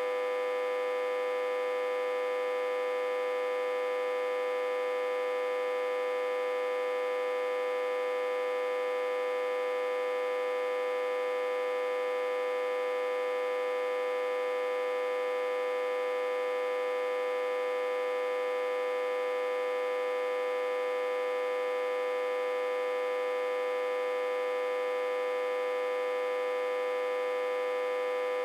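Autotransformer humming steadily, a high electrical hum strongest around 500 Hz with many overtones, produced by the autotransformer being reverse-connected to a step-down transformer with about 60–80 V on the input.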